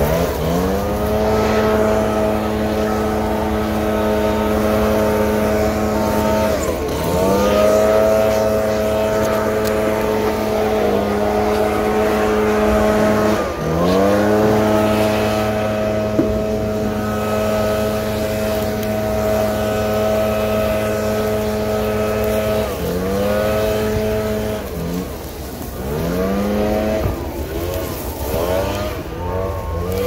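Heavy diesel truck engine revving up and holding at high revs for several seconds at a time, dropping back and revving again several times, with quicker rev-ups near the end over a steady low engine hum. Reversing beeps sound briefly at the start.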